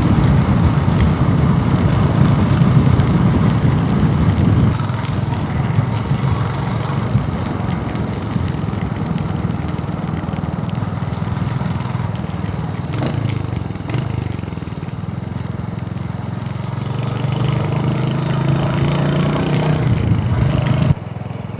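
Royal Enfield Hunter 350's single-cylinder engine running steadily while the motorcycle is ridden, its note climbing in pitch a few seconds before the end.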